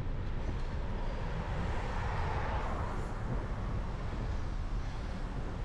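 Bicycle riding noise: wind rumbling on the microphone and tyres on the road surface, steady, with a swell of hiss about halfway through.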